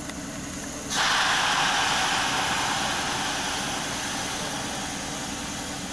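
A sudden loud hiss of compressed air venting from a standing electric train starts about a second in, then slowly fades. A low steady hum sits underneath.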